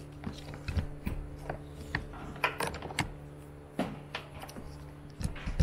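Plastic MC4 solar-cable connectors and their cables being handled and plugged together: a dozen or so scattered small clicks and knocks over a faint steady hum.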